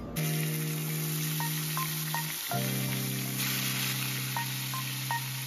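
Background music of sustained chords, changing about halfway through, with short light notes over them. Beneath it, chicken drumsticks sizzle as they fry in hot oil and caramelised brown sugar.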